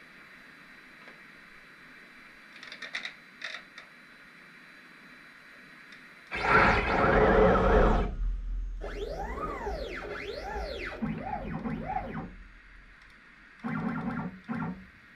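CNC router stepper motors whining in pitch sweeps that rise and fall, several in a row, as the machine speeds up and slows down on its moves. A louder stretch with a deep rumble comes about six seconds in, and short machine sounds come near the start and the end.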